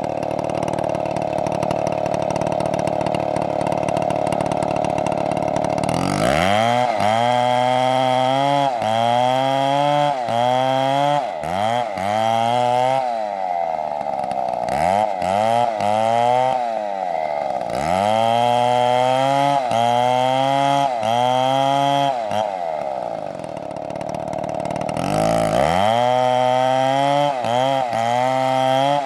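STIHL chainsaw cutting wood. For the first several seconds it runs steadily under load; after that its engine pitch rises and falls over and over, about once a second, as it revs in and out of the cut.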